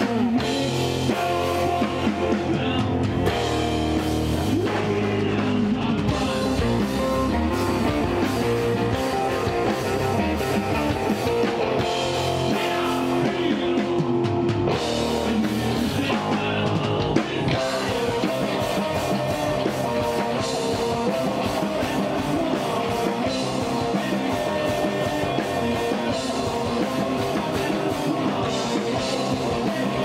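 Rock band playing live: electric guitar, bass guitar and drum kit together, steady and fairly loud.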